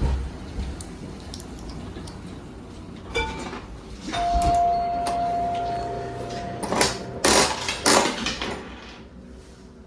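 Coin-operated bouncy-ball prize machine: a click, then a steady electronic tone held for about two seconds, then a few loud rattling clatters near the end.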